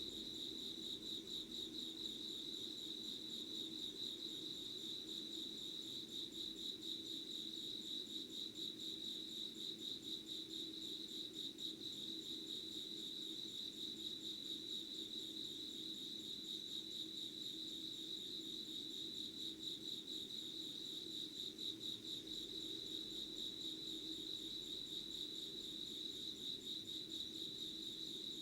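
Crickets chirping in a steady, high-pitched, fast-pulsing trill that runs unbroken, over a faint low hum.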